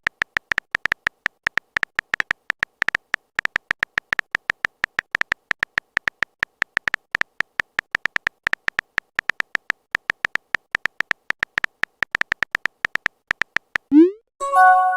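Smartphone keyboard typing sound effect: a rapid, irregular run of short clicky beeps, about five a second, stopping about fourteen seconds in. Then a quick rising swoop and a short multi-tone chime, a message-sent notification.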